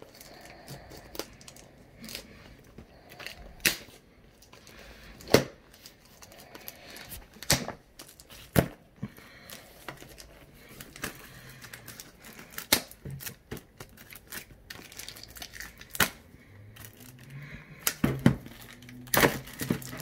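Clear plastic wrap being torn and peeled off a small cardboard retail box: quiet crinkling broken by scattered sharp snaps and ticks.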